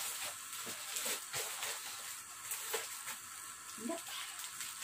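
Gift packaging rustling and crinkling in scattered short strokes as a gift is handled and unwrapped, over a steady hiss.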